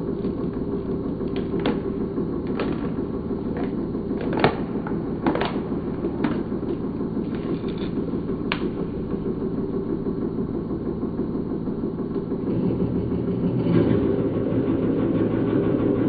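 Hydraulic press's power unit running with a steady hum, with scattered sharp clicks as the crushed plastic bottle is handled under the ram. The hum grows louder and deeper about twelve seconds in.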